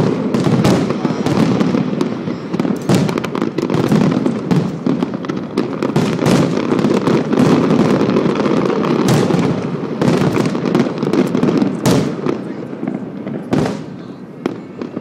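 Aerial fireworks bursting in a dense, continuous barrage of overlapping bangs and crackle, thinning out late on to a few last separate bangs as it dies away.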